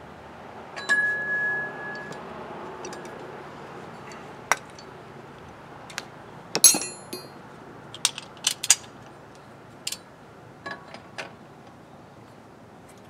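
Steel tools and parts clinking as they are handled: a piece of metal rings briefly about a second in, followed by a scattered string of sharp clinks, among them a large socket being picked up.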